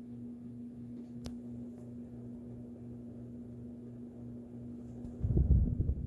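Hampton Bay Littleton ceiling fan running noisily: a steady motor hum over a lower drone that pulses regularly, the fan in a state that needs work. There is a sharp click about a second in, and from about five seconds in a louder, irregular low rumbling.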